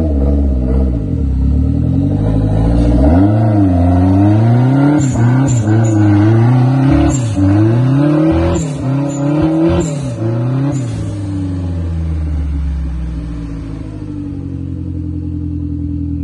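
Daihatsu Feroza's four-cylinder engine revving in repeated surges as it works its way up a rutted dirt trail, its pitch rising and falling about once a second, with several sharp clicks mixed in. After about eleven seconds it settles to steadier, lower running, then begins to rise again near the end.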